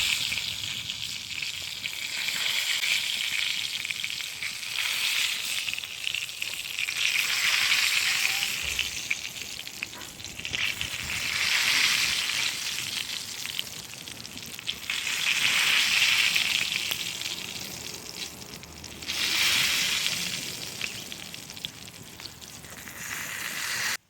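Food sizzling as it fries in hot fat, a steady hiss that swells and fades every few seconds, then cuts off suddenly at the end.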